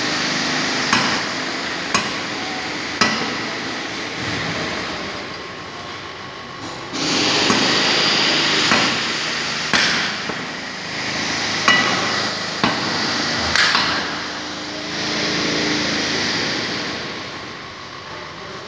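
Factory shop noise: a rushing hiss that swells and fades, with several sharp metallic knocks like hammer blows scattered through it.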